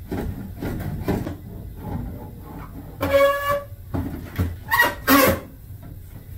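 Sheet-metal humidifier tank being worked out of its cabinet: scuffs and knocks, a short high-pitched squeak about three seconds in, and two more squeaky scrapes just before and after five seconds as the tank slides free.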